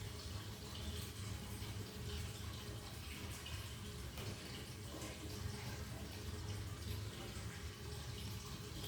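Faint rustling and crinkling of a sticker packet being opened by hand, over a steady low room hum.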